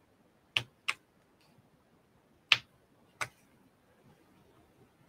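Paper piercing tool punching stitching holes through cardstock into a pricking mat: four sharp clicks, two close together about half a second in, then two more, spaced further apart, around the middle.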